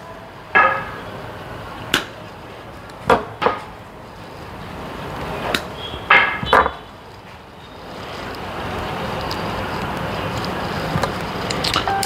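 Sharp metallic clicks and snips of pliers working on the small steel wafers of a Mercedes door lock cylinder, about seven in the first several seconds, a few with a short ring. A steady rushing noise sets in for the last few seconds.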